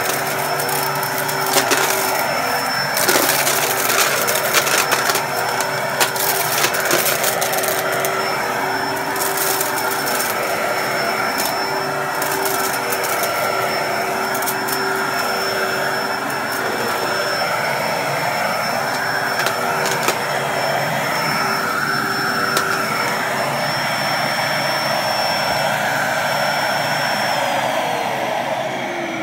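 Dyson upright vacuum cleaner running on carpet with a steady whine, sucking up debris that crackles and rattles through it for the first several seconds. Near the end the motor is switched off and its pitch falls as it spins down.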